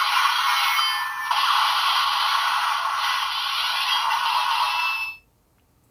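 Bandai DX Kaenken Rekka toy sword's built-in speaker playing its Dragonic finishing-move sound effects and music, thin and tinny with no bass. The added Shinka Ryūha Zan name call is drowned out under the effects. The sound cuts off abruptly about five seconds in.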